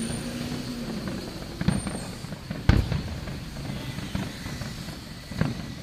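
Aerial fireworks shells bursting: a few sharp booms, the loudest about two and a half seconds in, over steady background noise. A low hum fades out about a second in.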